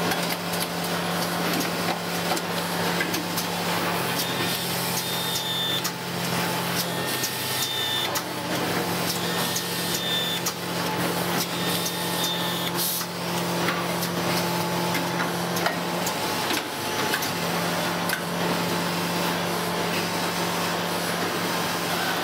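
Automated screwdriving line running: a steady low machine hum with frequent clicks and clacks from the conveyor fixtures and actuators, and several short high whines in the middle.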